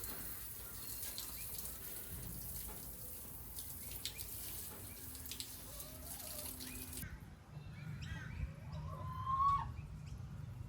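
Water running from a tap in a steady hiss, shut off abruptly about seven seconds in, followed by a few short bird chirps.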